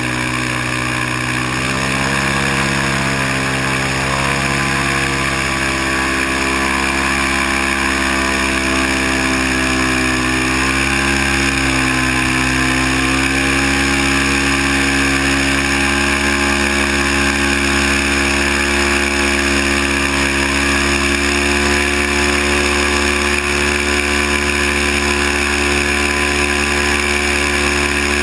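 Airboat engine and propeller running at speed, a loud steady drone. The pitch climbs over the first couple of seconds as it speeds up, and dips and recovers briefly about ten seconds in.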